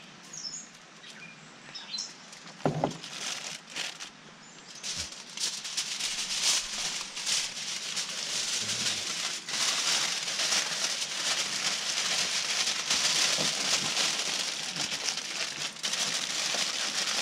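Aluminium foil crinkling and crackling as it is folded and crimped into a packet around fish and mushrooms, continuous from about five seconds in. Before that, a few short bird chirps and handling clicks.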